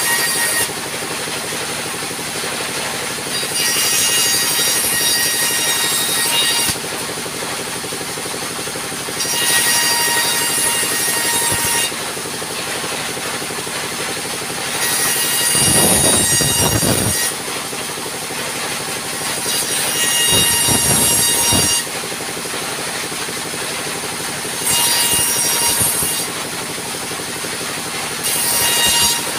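Sawmill band saw running steadily, its blade cutting timber in repeated passes a few seconds long. Each pass rises to a louder, higher whine. Twice in the middle, boards knock and scrape heavily on the saw table.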